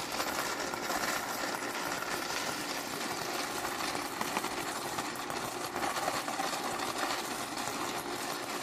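Homemade coin counting machine running, with a continuous rapid clatter of coins passing through it and spilling from its chute onto a pile of coins in a plastic bag.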